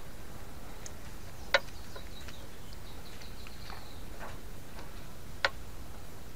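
Fingers pulling the seeds and wet pulp out of a ripe cucumber onto a metal tabletop, with soft squelchy handling sounds and two sharp clicks about four seconds apart.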